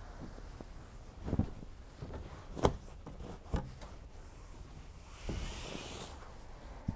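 Handling noise of a natural rubber mattress pad being laid into a bed frame. There are a few soft thumps as it flops down onto the slats, then a brushing swish near the end as a hand smooths across its cover.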